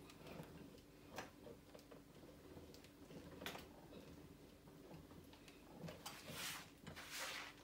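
Faint, irregular clicks and ticks from a hand-cranked jeweller's rolling mill as gold wire is fed through its rollers, with two soft rustling swishes near the end.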